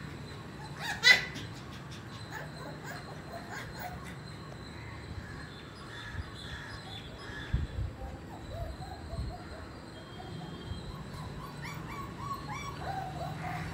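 Puppies yipping as they play tug-of-war over a toy, with one loud, sharp yelp about a second in.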